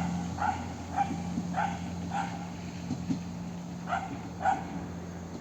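A dog barking repeatedly, about seven short barks in uneven groups, over the steady low hum of a diesel railbus engine that slowly fades.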